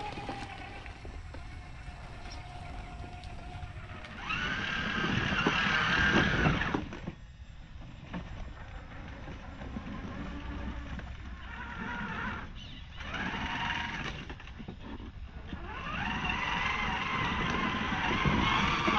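Electric motor and geartrain of a Traxxas TRX-4 scale RC crawler whining in bursts as it drives over leaves and plant stalks. The whine rises and holds for a few seconds about four seconds in, returns briefly twice, then comes back steadily near the end.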